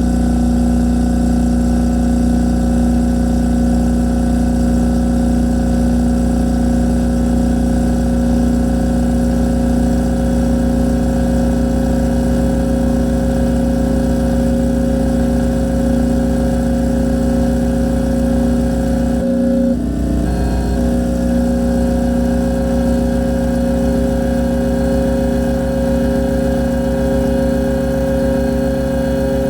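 Harsh noise: a loud, steady drone of layered hums and low rumble, built from mangled refrigerator sounds, with a brief glitch about two-thirds of the way through.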